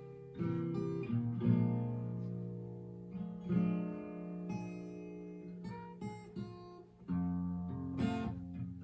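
Blues guitar playing an instrumental passage: plucked notes and strummed chords ringing out over low bass notes.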